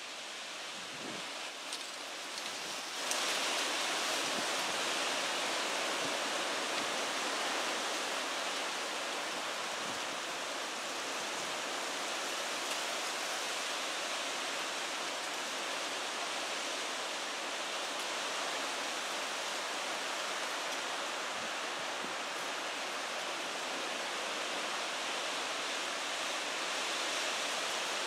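Steady hiss of falling rain, with some light scattered patter in the first few seconds. About three seconds in it suddenly becomes louder and fuller, then stays even.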